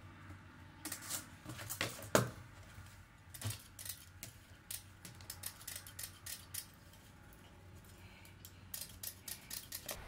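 Tin snips cutting galvanized wire mesh (hardware cloth), each wire snipping through with a sharp click. There is a quick run of clicks in the first few seconds, the loudest about two seconds in, then sparser snips, a short lull, and another run near the end.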